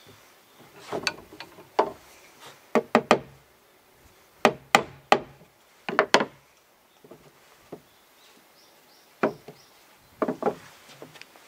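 Sharp wood-on-wood knocks in short, irregular groups of two or three, as a board roof is handled and set down onto a small wooden birdhouse.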